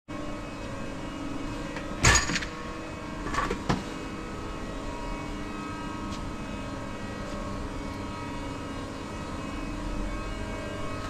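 Steady hum of factory machinery, with several fixed tones, on a large machine-shop floor. A loud knock comes about two seconds in, and two lighter knocks follow a second and a half later.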